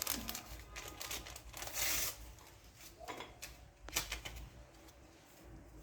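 Small paper sachets of baking powder being torn open and crinkled: short tearing and rustling sounds with a few light clicks.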